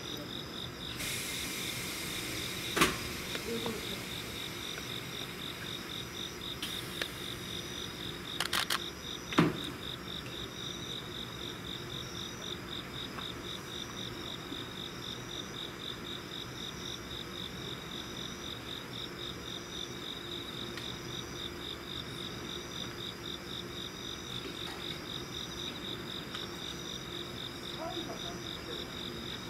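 Crickets chirping steadily in a rapid, pulsing high trill, over a low steady hum. A short hiss comes about a second in, and two sharp knocks sound about 3 s and 9 s in.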